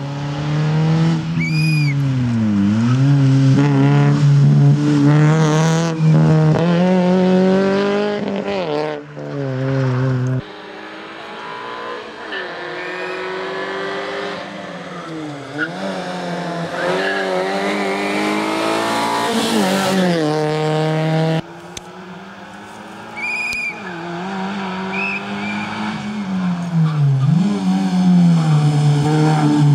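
Fiat Cinquecento Sporting rally car with a 1.2 16-valve four-cylinder engine driven hard, revs dropping on each lift and climbing again through gear changes, with a few short tyre squeals. The sound drops in level twice as the car goes further away and then comes close again.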